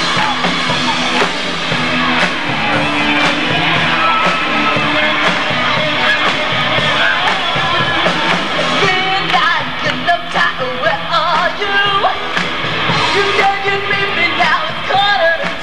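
A live band with drums and keyboards playing a song, with amplified singing over the top through PA speakers.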